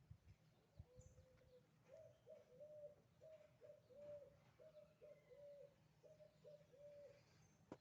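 A bird calling faintly: a steady run of short, same-pitched cooing notes, about two a second. A sharp click comes at the very end.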